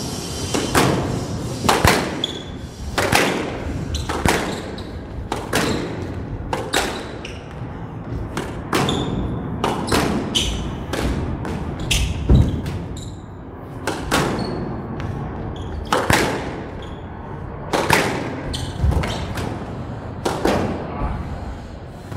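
Squash rally: the ball is struck by racquets and thuds off the court walls, about one sharp hit a second throughout.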